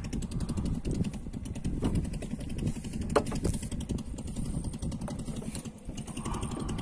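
Small boat engine running steadily with a rapid, even putter.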